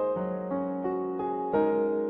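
Background music: a piano or electric piano playing a slow run of sustained notes.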